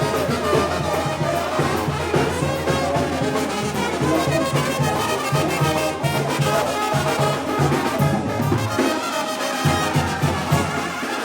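Mexican banda brass band playing, with trumpets and trombones over a low bass line that pulses in short notes.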